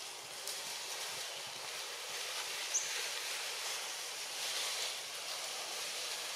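Steady outdoor ambience, an even hiss, with one brief high squeak rising in pitch about three seconds in.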